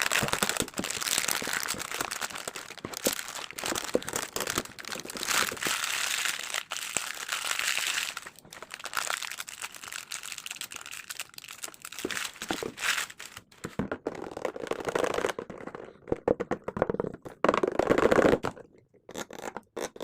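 A plastic chips packet being crumpled and crinkled in the hands: continuous crackling rustle with sharp crackles, louder in bursts near the end.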